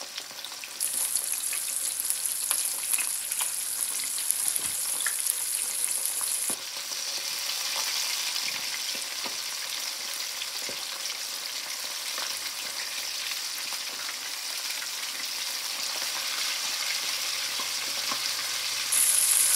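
Flour-coated chicken wings deep-frying in hot oil: a steady sizzling hiss flecked with small pops and crackles. It is louder from about a second in until about six seconds in, then settles.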